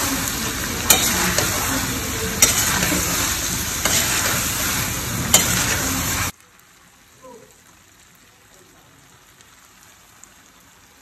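Paneer cubes, capsicum and onion sizzling in sauce in a wok while being stirred with a slotted steel spatula, which knocks sharply against the pan about four times. The sizzling cuts off suddenly about six seconds in, leaving only faint small sounds.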